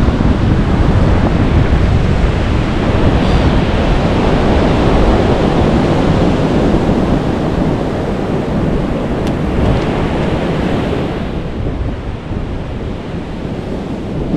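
Surf breaking on a beach, with wind buffeting the microphone; the noise eases slightly near the end.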